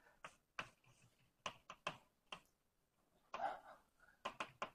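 Faint, irregular clicks and taps, about ten of them a few tenths of a second to a second apart, some with a short scraping tail.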